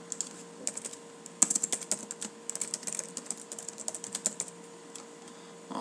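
Typing on a computer keyboard: a quick, irregular run of keystrokes that stops about four and a half seconds in, over a faint steady hum.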